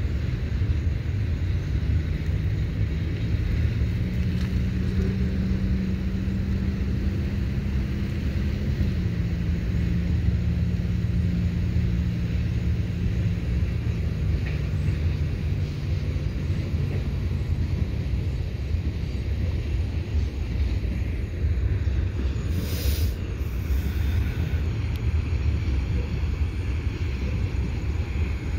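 Low, steady rumble of a freight train rolling past, with a diesel locomotive's engine drone that drops in pitch about a third of the way through and then fades. A brief hiss comes about three-quarters of the way in.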